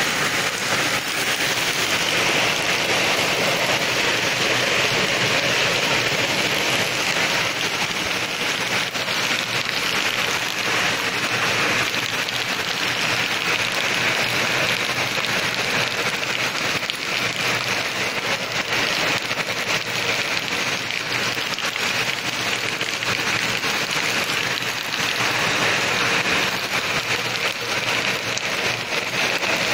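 Heavy rain falling steadily on leaves and ground, an even, continuous hiss of drops.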